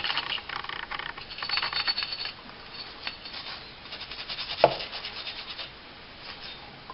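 A cleaning brush scrubbing a disassembled pistol part in quick back-and-forth strokes, harder at first and then lighter, with one sharp knock about two-thirds of the way in.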